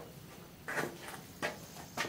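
A few short clatters and knocks of gear being handled around plastic gun cases and a range box, the loudest about a second in.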